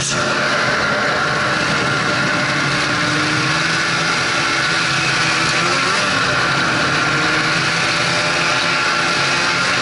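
Snowmobile engine and track running steadily as it rides along a snowy trail, a continuous loud drone whose pitch wavers slightly.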